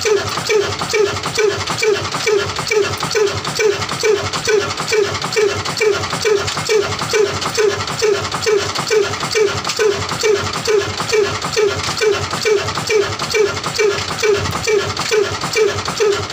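Old slow-speed horizontal single-cylinder diesel engine of the Ruston type, with a large flywheel, running steadily. It fires in an even, loud beat of a little over two strokes a second.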